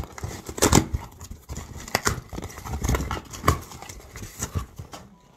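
A shipping box being opened and handled: irregular knocks and clicks of packaging being moved about.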